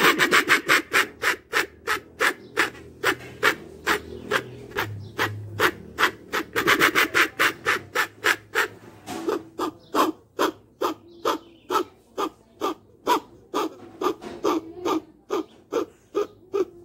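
A mouth-blown jacu (guan) game call imitating the bird, sounding a long run of short, rapid notes at about three a second, spacing out a little in the second half.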